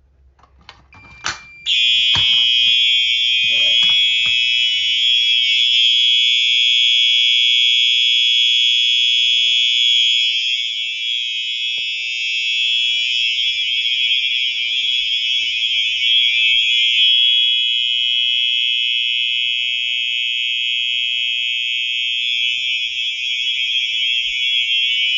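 A few clicks, then about two seconds in a Simplex 4903 electromechanical fire alarm horn starts sounding. It is loud and continuous, with no on-off pattern.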